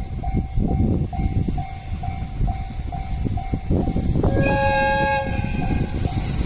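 Japanese level-crossing warning bell ringing in a steady rhythm about twice a second while a freight train rumbles past, its wheels knocking over the rail joints. About four seconds in, a train horn sounds once for about a second.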